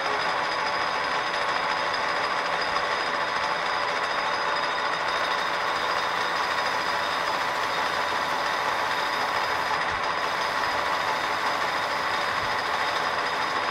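A metal lathe taking a heavy turning cut in an aluminium blank: a steady cutting noise with a couple of steady high ringing tones through it.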